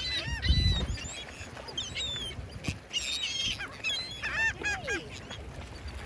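A flock of gulls calling over one another: many short, arched squawks in quick series, some overlapping. A brief low rumble about half a second in.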